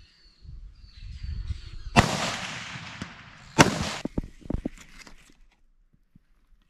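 Two rifle shots about a second and a half apart, each a sharp crack with a rolling, fading report, followed by a few short clicks.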